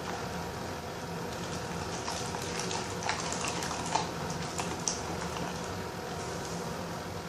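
Sticky glue-and-detergent slime being mixed and kneaded by hand: short wet squelches and crackles, busiest in the middle, over a steady background hiss.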